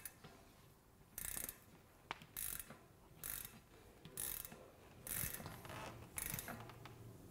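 Ratchet wrench clicking as it is worked back and forth on a cassette lock ring tool, tightening a bicycle cassette lock ring. It comes as about six short bursts of clicks, roughly one a second.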